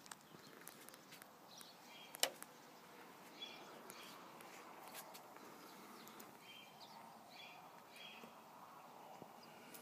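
Faint outdoor ambience with short, faint bird chirps every second or so. A single sharp click about two seconds in.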